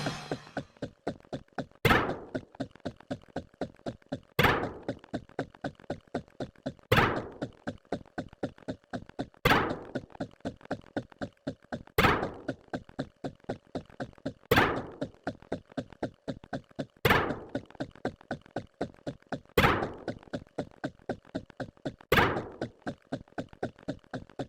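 A repeating loop of percussive sound effects: a loud thunk about every two and a half seconds, with quicker, lighter ticks, about four a second, between the thunks.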